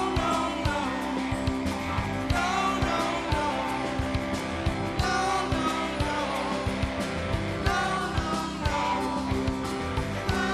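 Live rock band playing: electric guitar and bass guitar over a drum kit keeping a steady beat.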